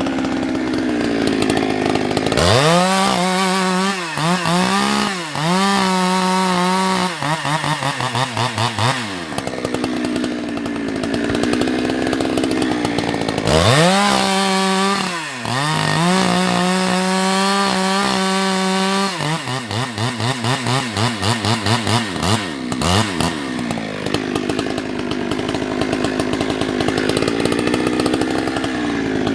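Husqvarna 365 two-stroke chainsaw revving to full throttle and cutting through firewood, its pitch dipping under load. It drops back to idle around 9 s, cuts again from about 13 s to 19 s, then winds down to idle.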